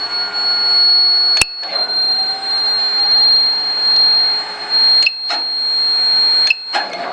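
DCZ70 robot running with a steady high-pitched buzzing whine over a noisy hum. Sharp clicks with brief drop-outs break it about a second and a half in and several times in the last two seconds.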